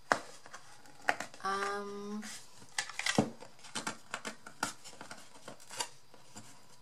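Unfinished wooden purse box being handled: scattered sharp clicks and light knocks of wood as its lid is opened and the box is turned over on a craft mat.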